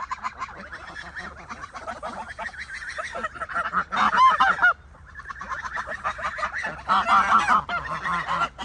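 A flock of domestic ducks calling in a dense run of short quacks and chatter. There are louder bursts of calls about four seconds and seven seconds in.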